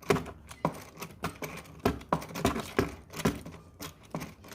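Irregular clicks and light taps of a hand tool as the air filter housing's Torx screws are driven back in.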